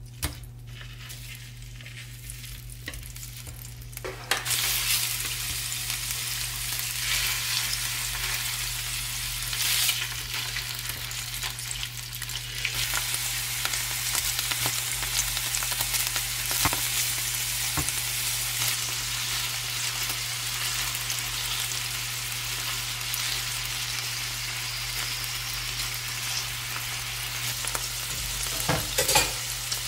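Beef hanger steak searing in hot oil in a square nonstick frying pan: steady sizzling that gets louder about four seconds in, with occasional clicks.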